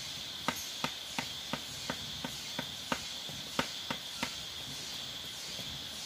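Steady high chorus of night insects, with a run of about eleven sharp knocks, roughly three a second, stopping a little after four seconds in.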